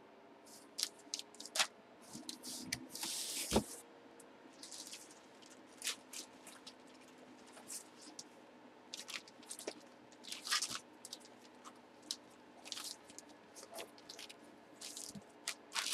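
Faint handling noises: scattered clicks, taps and rustles from a plastic graded-card slab and a cardboard box being handled and closed, with a longer rustle about three seconds in.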